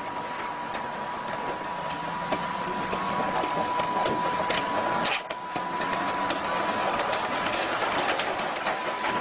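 Tracked armoured vehicle climbing a trailer ramp: engine running and steel tracks clattering, with a steady high whine, slowly growing louder. A sharp crack about five seconds in.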